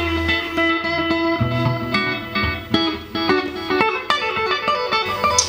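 Telecaster electric guitar played clean through an amp: picked single notes and chords in a loose improvised jam, with notes left ringing over a held low note.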